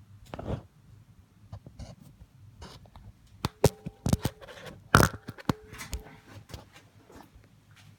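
Workshop handling noises: scattered clicks and knocks of tools and metal parts being moved and set, with a few sharper metallic clinks about halfway through, two of which ring briefly.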